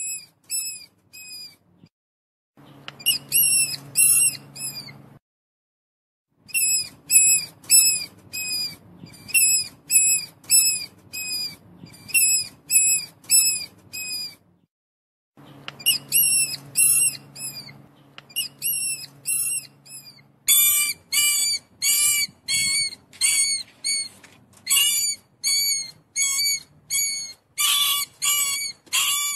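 Mouse squeaking: repeated short, high squeaks, about two a second, in runs broken by brief silences. From about twenty seconds in, the squeaks come faster and rougher.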